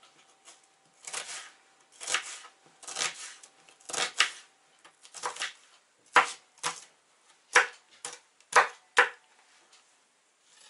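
Kitchen knife cutting an onion on a plastic cutting board: a series of separate knocks of the blade striking the board, coming faster and louder about halfway through as slicing turns to chopping.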